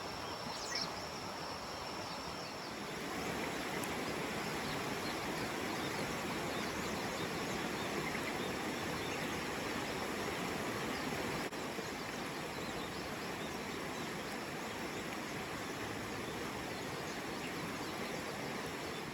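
Outdoor nature ambience: a steady even hiss with a faint, high, steady insect drone, and a short bird chirp about a second in.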